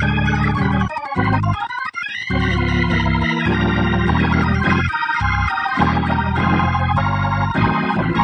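Church organ, Hammond-style, playing held chords over a bass line, moving to a new chord every couple of seconds.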